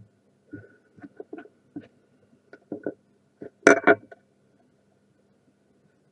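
A series of light clicks and taps, with a louder clatter of sharp knocks about three and a half seconds in, over a faint steady electrical hum.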